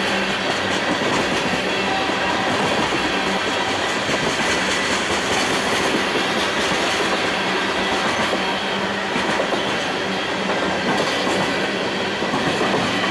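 Freight cars rolling past at a steady speed: tank cars, covered hoppers and gondolas giving a continuous noise of steel wheels on rail with the clickety-clack of wheels over rail joints.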